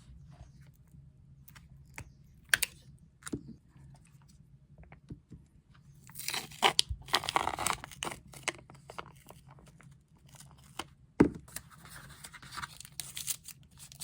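Rustling and tearing of a wrapper or packaging being handled close by, with scattered light clicks. One sharp knock comes about eleven seconds in.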